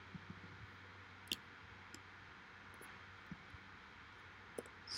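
Quiet room tone with a handful of faint, scattered clicks from working a computer's mouse and keys. The sharpest click comes about a second and a half in.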